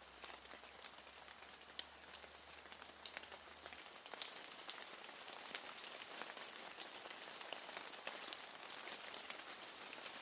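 Steady rain on a window: an even hiss dotted with many light, irregular drop ticks.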